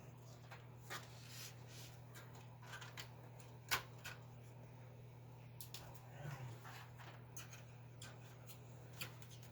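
Scattered small clicks and taps of handling on a workbench over a steady low electrical hum, with one sharp click about four seconds in.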